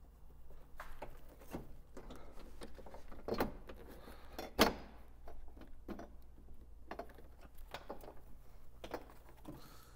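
Scattered plastic clicks, creaks and knocks as the headlight housing of a 2003–2005 Toyota 4Runner is pried and wiggled up off its mounting clips, with the sharpest knock about four and a half seconds in. A low steady hum sits underneath.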